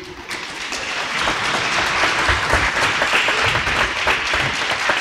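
Applause in a gymnasium from a seated group of children and a few adults, many hands clapping. It builds up over the first second and then holds steady.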